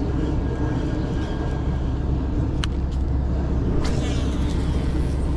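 Steady low rumble of wind buffeting the microphone, with a single sharp click about two and a half seconds in.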